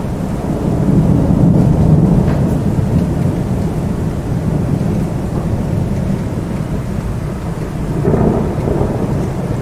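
Thunder rumbling over steady rain in a summer storm. The rumble swells about a second in and again near the end.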